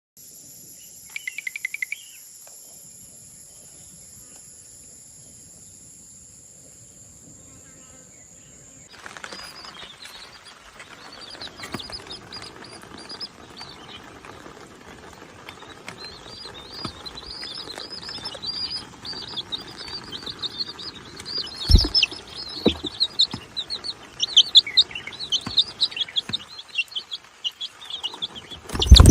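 Many small birds chirping in a dense, rapid chorus of short high calls that starts about nine seconds in and grows louder, with a few loud thumps near the end. Before that, steady high-pitched tones and a brief run of clicks about a second in.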